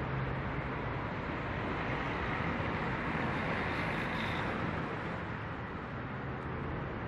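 Steady outdoor road-traffic noise, a continuous rush that swells in the middle as a vehicle goes by and then eases off.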